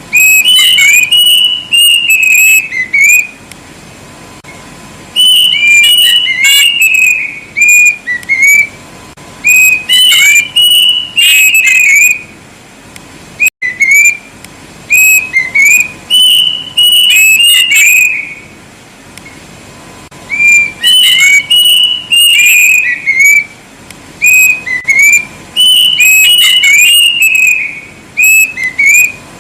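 Kedasih (plaintive cuckoo) singing loud, clear whistled phrases of short slurred notes. Each phrase lasts two to three seconds and comes about every five seconds, six times over.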